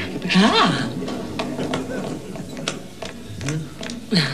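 A metal coin-operated luggage locker being handled: a series of irregular clicks and clacks from its door and lock mechanism.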